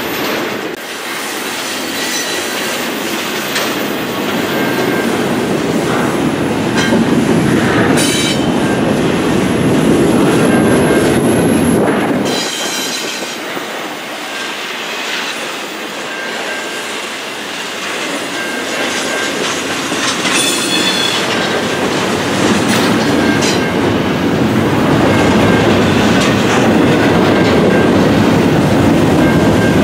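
Double-stack intermodal well cars of a long freight train rolling past close by: a steady loud rumble with wheels clicking over the rail joints and brief high squeals now and then. The sound drops a little about twelve seconds in, then builds again.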